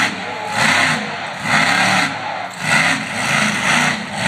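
Monster truck engine revving hard in repeated surges, about one a second, as the truck wheelies and drives around the dirt arena.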